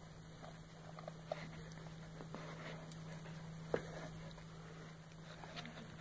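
Faint soft rustling and a few small clicks as Maine Coon kittens are handled and shift about on bedding in a cardboard box, over a steady low hum.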